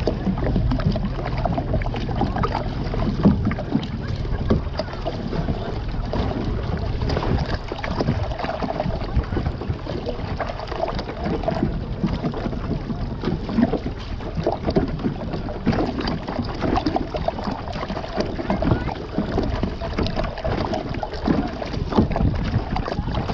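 Water splashing and lapping around a plastic sit-on-top kayak as it is paddled, with wind buffeting the microphone, heaviest in the first few seconds.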